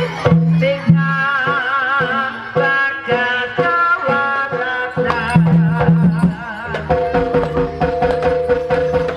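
Live kuda kepang ensemble music: a wavering melody line with strong vibrato over repeated drum strokes and low held tones.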